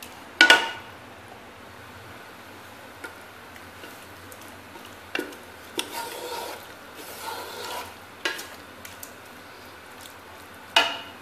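Wooden spoon stirring a thick sauce in an aluminium pressure cooker: scattered knocks and scrapes against the pot, the loudest about half a second in and another near the end, over a low steady sizzle.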